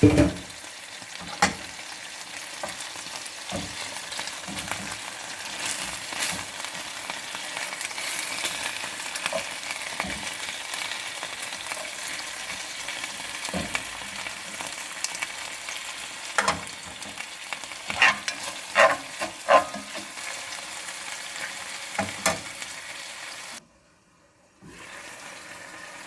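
Food frying in hot oil in a pan, a steady sizzle, with a utensil stirring and now and then clicking against the pan, several times in quick succession in the later part. The sound cuts out for about a second near the end.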